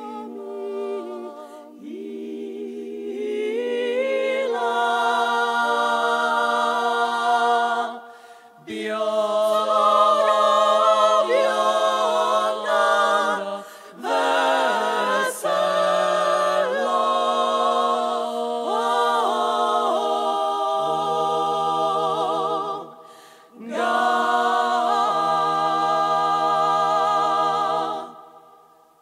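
Women's klapa group singing a cappella in close harmony, in long held phrases broken by short pauses; the last chord fades out near the end.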